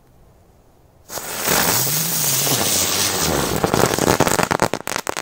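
Crackle-effect firecracker going off: about a second in, a sudden burst of dense, loud crackling that lasts some three seconds, thinning into separate sharp pops near the end, with no single bang.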